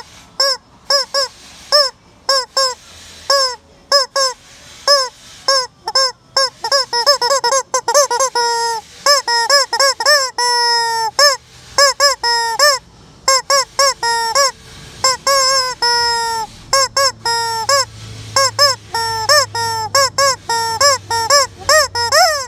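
Yellow rubber screaming-chicken squeeze toy being squeezed over and over, giving a fast, irregular run of short, loud honking squawks that rise and fall in pitch, with a few longer drawn-out ones mixed in.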